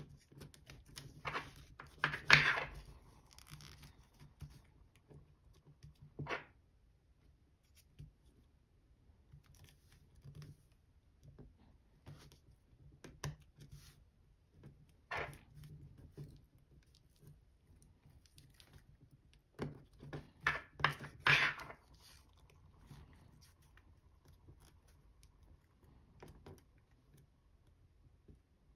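Foil origami paper crinkling and rustling as it is folded and creased by hand, in scattered short bursts. The loudest bursts come about two seconds in and again around twenty to twenty-two seconds in.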